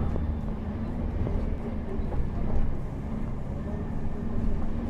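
Motor coach's diesel engine running at low speed, a steady low rumble.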